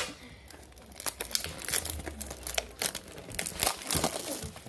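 Clear plastic shrink wrap crinkling and tearing as it is pulled off a cardboard trading-card box, a dense run of irregular crackles.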